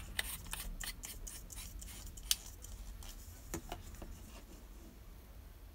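LED bulb's metal screw base being turned into a plastic lamp socket: a run of faint clicks and scrapes from the threads, with a sharper click a little over two seconds in.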